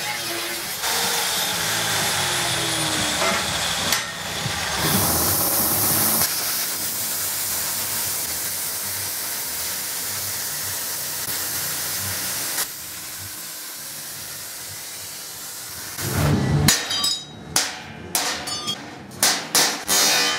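An angle grinder grinds steel, sparking. It gives way to the steady hiss of an air plasma cutter cutting through steel sheet. In the last few seconds come a run of sharp, ringing hammer blows on the steel plate, knocking out the cut pieces.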